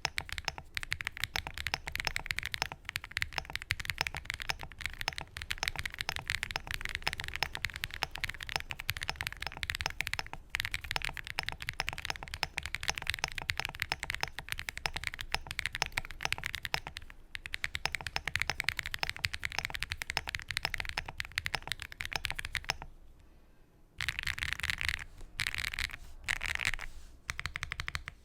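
Fast, continuous typing on a Bridge75 gasket-mount mechanical keyboard with stock MMD Lavender switches, PBT keycaps and an FR4 plate, foamed in the case and under the plate. The typing stops for about a second near the end, then starts again.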